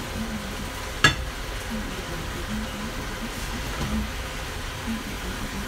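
Stovetop cooking: a steady low hum with faint sizzling from a frying pan of pasta in sauce, and one sharp clack of metal tongs against the pan about a second in.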